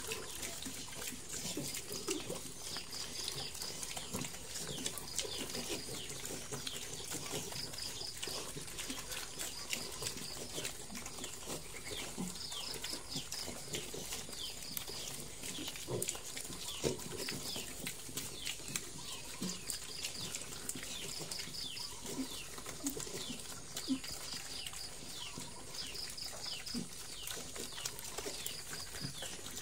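A group of piglets eating dry meal from a concrete trough: continuous crunching, chomping and snuffling, with occasional soft grunts.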